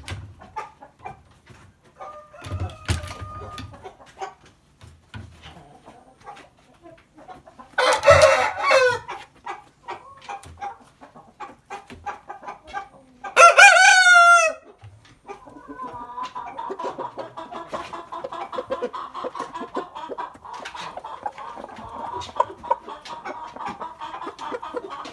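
Lari rooster crowing twice: a hoarse crow about eight seconds in and a clearer one about thirteen seconds in, each short. Softer clucking and scattered clicks run between them, and a long stretch of steady clucking follows to the end.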